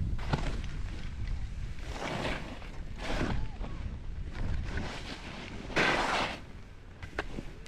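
Skis hissing through powder snow, with a swish on each turn about once a second, the loudest a little before the end, over a steady low rumble of wind on the microphone.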